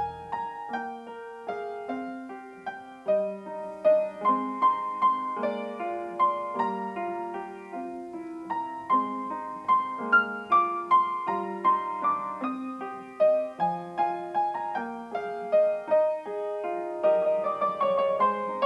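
Piano music: a melody of evenly paced single notes over lower accompanying notes.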